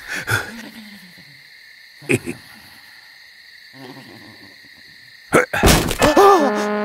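Cartoon soundtrack of a quiet night scene: a faint steady high chirring, a soft low call early on and a small click. About five seconds in comes a loud sharp knock as a chess piece is moved on the board, and sustained music notes follow.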